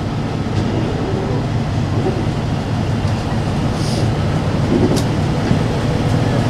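Class 17 Clayton diesel locomotive's engines running with a steady low rumble as it draws closer, growing louder toward the end.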